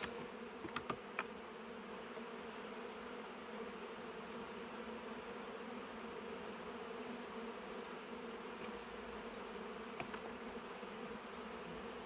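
Honeybees from an opened hive buzzing in a steady hum, many of them in the air. A few light clicks about a second in and once near the end.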